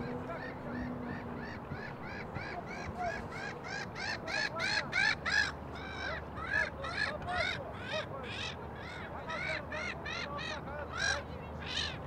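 A bird calling over and over: a rapid series of short, high chirping calls, each rising and falling in pitch, about three a second, loudest about five seconds in.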